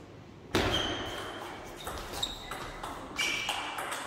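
A table tennis rally: the ball clicking off the table and the players' bats, with short ringing pings, a few hits a second, starting after about half a second of quiet.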